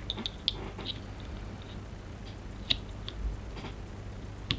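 Light clicks and taps of small parts being handled and fitted into the trigger housing of a KJW KC-02 airsoft rifle's trigger mechanism. The clicks come at irregular moments, the sharpest about half a second in, near the middle and at the end, over a steady low hum.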